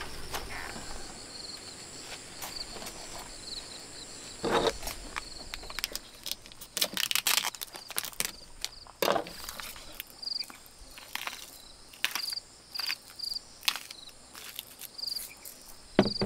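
Crickets chirping steadily in a repeated high pulse. From about six seconds in, short clicks and crinkles come over it from plastic meat packaging being handled and a pepper grinder being turned.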